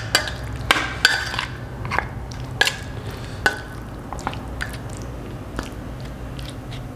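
Steel spoon clinking and scraping against a steel plate while stirring raw chicken pieces in a spice marinade: irregular sharp clinks, some briefly ringing, louder over the first few seconds and softer after. A low steady hum runs underneath.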